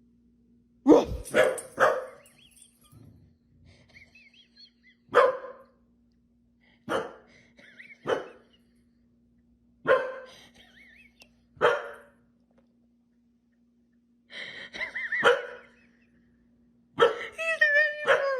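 Dog barking: a run of short, sharp single barks spaced a second or two apart, then a longer wavering, whine-like howl near the end.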